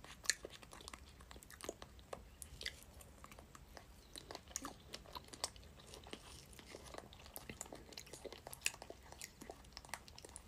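Baby monkey chewing strawberry: a steady run of small, irregular wet clicks.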